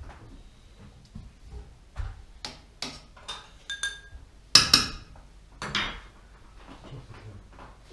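Kitchen utensils and dishes clinking and knocking: an irregular run of clinks and clatters, some ringing briefly, with two louder clatters about halfway through.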